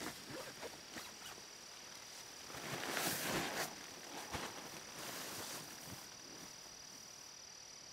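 Soft rustling and handling of camping gear in a tarp shelter, with scattered small clicks and a louder stretch of rustling about three seconds in. A faint steady high tone runs underneath.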